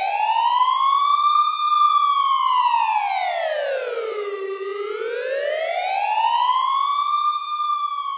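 Siren wailing: a single tone that climbs and falls slowly, peaking about two seconds in and again about seven seconds in.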